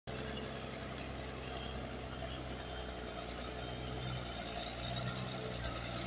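Caterpillar D6D crawler dozer's diesel engine running with a steady low drone while the dozer pushes wet clay with its blade.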